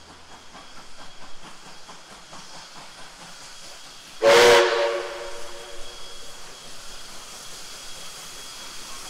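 NSWGR 59 class steam locomotive 5917 approaching under steam, with a short, loud blast of its steam whistle about four seconds in, trailing off into steam hiss.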